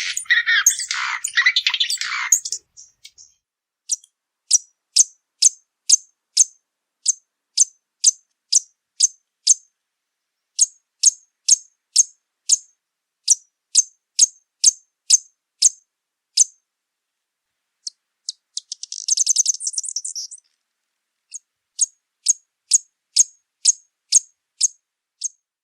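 Violetear hummingbird calling: a dense high twittering for the first couple of seconds, then a long monotonous series of sharp, high chip notes, about two a second, with a short buzzy trill about three quarters of the way through.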